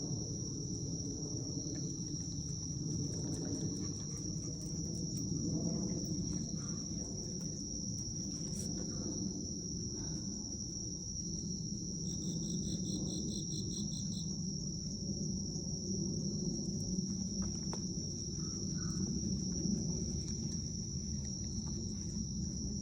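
Night chorus of autumn crickets: a steady high-pitched trill throughout, joined near the middle by another insect's rapid pulsed chirping for about two seconds, over a low background hum.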